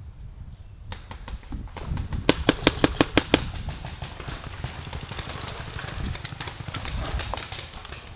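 Paintball marker firing a quick string of about seven shots in just over a second, a little over two seconds in, with a couple of single pops shortly before, over a steady low rumble.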